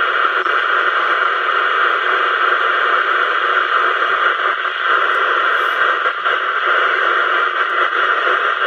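Steady hiss of static from an Audioline CB radio's speaker, with no station transmitting.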